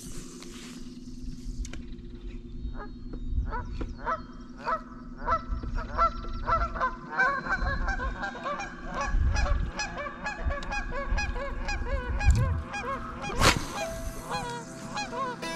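A flock of geese honking: a few calls at first, building to many overlapping honks through the middle. A single sharp knock comes near the end.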